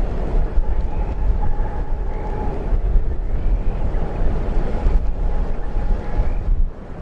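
Strong gusty wind buffeting the microphone with a heavy low rumble, under a faint steady whine and short rising chirps about once a second.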